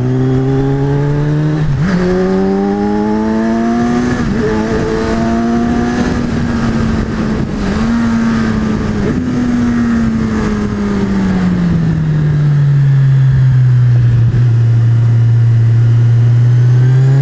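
Kawasaki Z1000's 1043 cc inline-four engine under way on the road. The revs climb with a brief dip about two seconds in and hold for several seconds, then fall away from about ten seconds in to a steady lower note.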